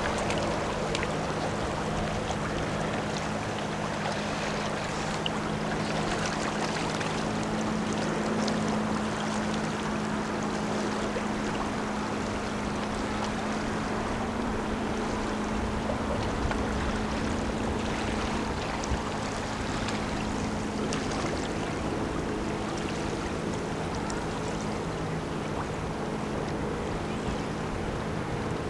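Lake freighter's engines droning steadily as the ship passes, a constant low hum under a haze of wind and water noise.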